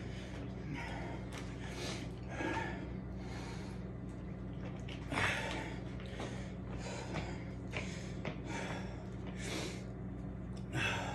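A man breathing hard and heavily between sets of burpees, winded from the exertion, with loud breaths every second or so and a sharper one about five seconds in. A steady low hum sits underneath.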